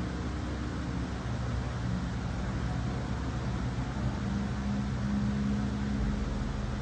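Steady low machine hum with a faint pitched drone that grows a little stronger in the second half.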